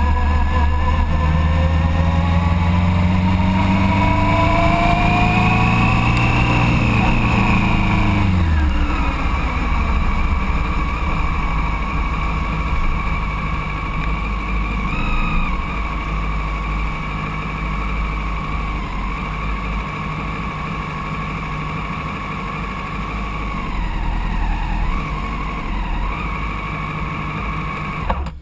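Sport motorcycle engine pulling with wind buffeting the microphone, its pitch rising slowly and then falling as the bike slows and stops. It then idles steadily for about twenty seconds, until the sound cuts off suddenly near the end.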